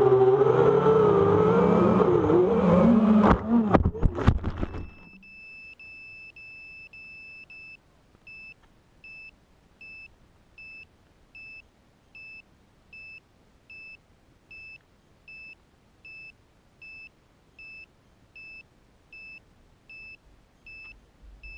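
FPV racing quadcopter's motors whining, the pitch rising and falling with the throttle, then cutting out in a few stuttering bursts about four seconds in. Then a high electronic beep sounds steadily for about three seconds and settles into short beeps about one and a half a second, typical of a racing drone's buzzer once the motors have stopped.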